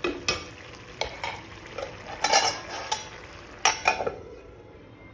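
A spoon stirring and scraping chana dal in a kadai, a string of clinks and scrapes against the pan that stops about four seconds in, over a faint sizzle from the dal cooking down.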